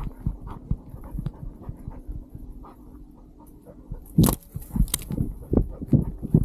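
Dog running with the camera on its harness: an irregular patter of paws thudding on gravelly dirt, and about four seconds in brush and grass loudly scraping against the harness camera as the dog pushes through scrub.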